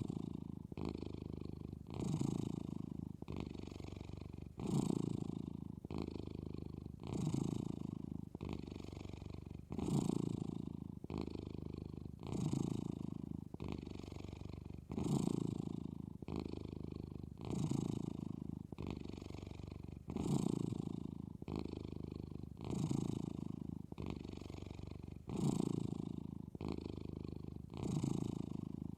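Sleeping cat snoring in a steady breathing rhythm: a louder breath about every two and a half seconds, with a softer one in between.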